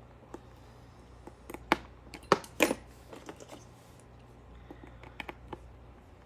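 Light clicks and taps of a precision screwdriver and tiny screws being worked out of a Samsung Galaxy Note 8's frame, with three sharper clicks about two seconds in and a few lighter ones near the end.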